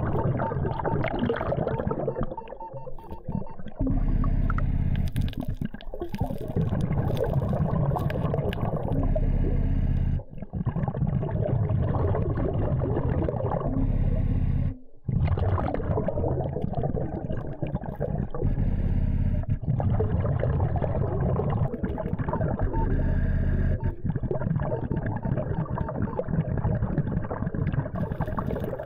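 Muffled underwater noise: a dense low rumble with gurgling and crackle, typical of a diver's exhaled bubbles and water moving past a submerged camera. It briefly drops out twice, about ten and fifteen seconds in.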